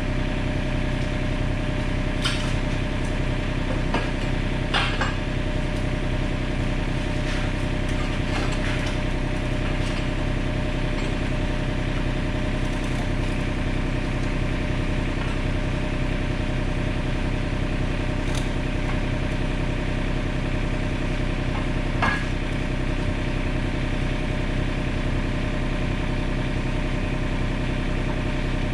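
Komatsu PC27 mini excavator's diesel engine running steadily, with a few sharp clanks about two, four to five, and twenty-two seconds in.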